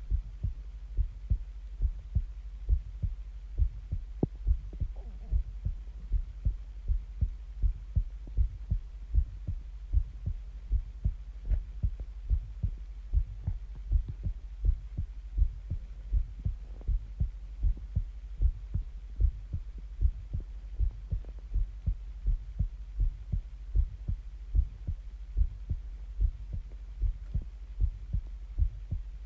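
A person's heartbeat: a steady rhythm of low thuds, a little over one a second, over a faint steady hum.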